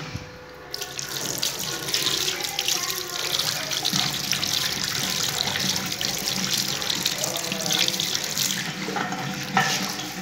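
Tap water running into a washbasin while a radish is rinsed by hand under the stream. The tap is opened about a second in, and the flow stops shortly before the end.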